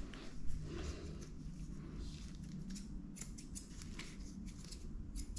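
Grooming scissors snipping through a dog's coat: a quick, irregular run of sharp snips over a low steady hum.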